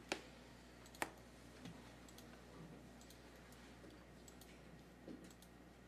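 A few sharp clicks from a computer being worked over quiet room tone: two loud clicks about a second apart near the start, then a few faint ticks. This is the calendar being pulled up on the computer.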